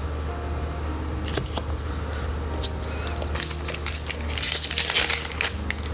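Light clicks of trading cards being set down, then from about three seconds in the crinkling of a foil Magic: The Gathering booster-pack wrapper handled in the hands, over a low steady hum.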